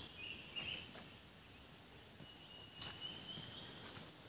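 Hiker's footsteps scuffing on a dirt and leaf-litter forest trail, a few separate steps, faint. A thin, high call holding one pitch sounds twice in the surrounding forest.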